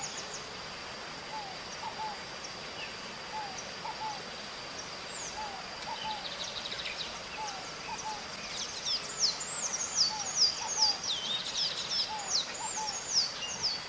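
Birds calling outdoors. A short low note repeats roughly once a second over a constant high whine. About two-thirds of the way in, a burst of rapid, high, downward-sliding calls comes in and is the loudest part.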